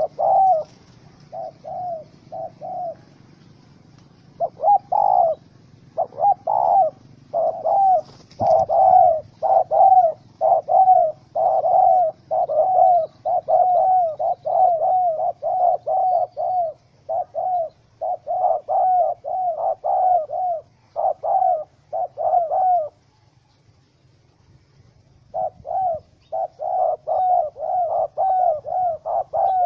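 Spotted dove cooing: a long run of short repeated coos, roughly two a second, that breaks off for about two seconds a little past the middle and then resumes.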